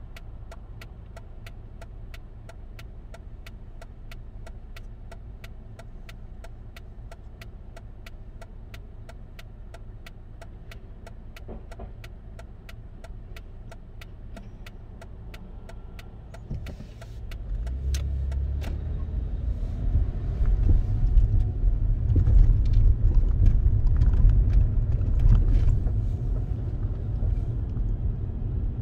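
Car turn signal ticking steadily in the cabin of an idling Mercedes; about 17 seconds in the car pulls away and engine and road noise rise, and the ticking stops shortly after.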